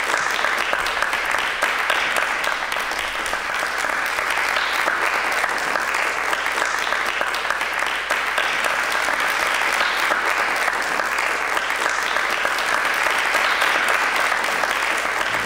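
Audience applauding at a curtain call: dense, steady clapping throughout.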